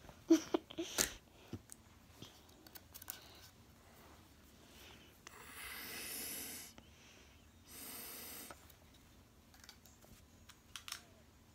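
Phone-handling bumps and clicks in the first second, then two soft breathy hisses, the first about five seconds in and lasting over a second, the second shorter about eight seconds in.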